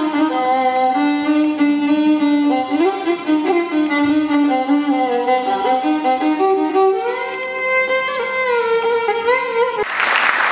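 Solo violin playing a slow melody with sliding notes, ending on a long held note. Audience applause breaks out near the end as the piece finishes.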